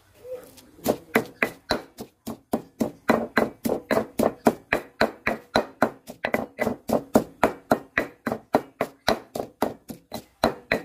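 Granite pestle pounding dried chilies into a paste in a granite mortar: a steady rhythm of stone-on-stone strikes, about four a second, starting about a second in.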